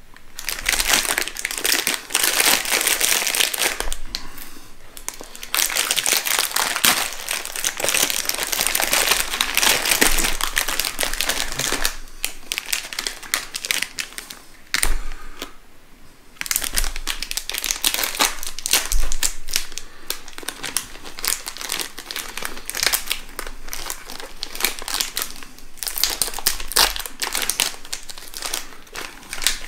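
Plastic wrapper of a pack of Gery coconut crackers crinkling loudly as it is handled and opened by hand, in long spells broken by a few short pauses.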